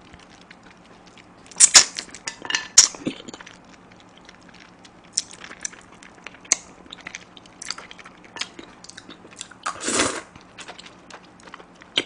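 Close-miked chewing and sucking as spicy chicken feet are eaten off the bone: wet smacks and small clicks, louder about two seconds in, with a longer louder mouth sound near the end.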